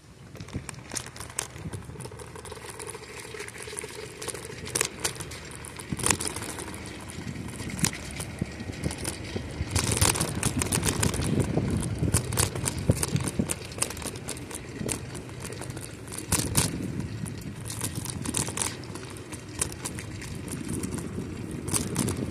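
Riding noise from a bicycle rolling along a cracked asphalt trail: a steady rumble of tyres and air, growing louder about halfway through, with frequent sharp clicks and rattles.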